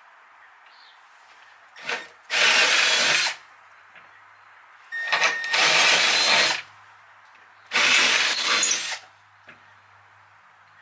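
Milwaukee power drill running in three bursts of about a second and a half each, boring holes with a twist bit meant for metal.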